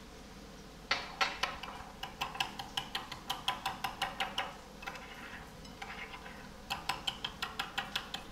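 Metal spoon stirring sauce in a small ceramic bowl, clinking against its side about four to five times a second. The clinking starts about a second in, eases off for a moment after about five seconds, then picks up again.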